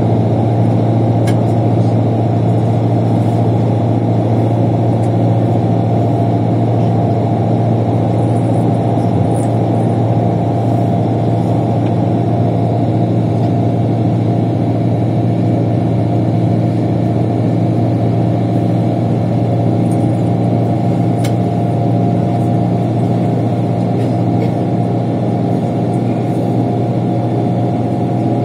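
Bus engine and road noise heard from inside the cabin while cruising, a steady low drone that does not rise or fall, with two faint clicks.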